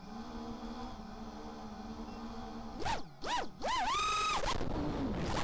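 FPV quadcopter's four ZMX 2206 2300kv brushless motors with Dal 5045 three-blade props spinning steadily at idle once armed. About three seconds in they are throttled up for takeoff, and the whine swoops up and down several times, then holds high.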